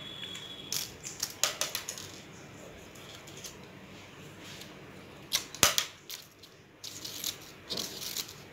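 Stiff chart paper crackling and rustling as hands press paper cutouts flat against a wall, in a few short clusters of sharp crinkles.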